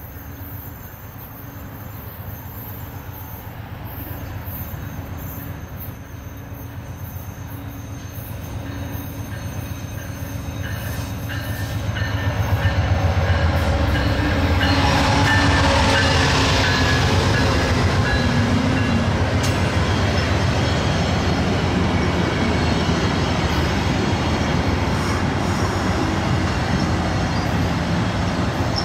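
VIA Rail passenger train led by a GE P42DC diesel locomotive approaching, its engine hum growing louder for about twelve seconds. The locomotive then passes close by with a loud rush, followed by the steady rolling noise of the passenger cars going past on the rails.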